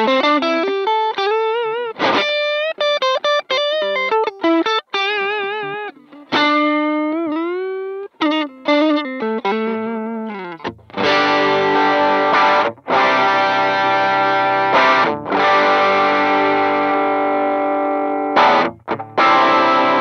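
Electric guitar played through a Demonfx overdrive pedal. It plays single-note lead phrases with vibrato and string bends, then, from about eleven seconds in, distorted chords that ring on and are struck again three times.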